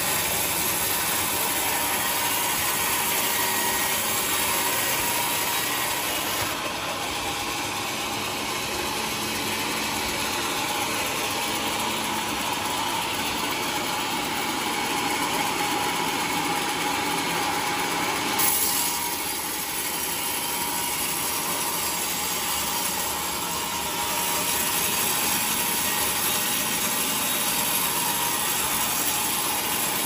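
Homemade vertical band sawmill running steadily, its blade sawing lengthwise through a teak log.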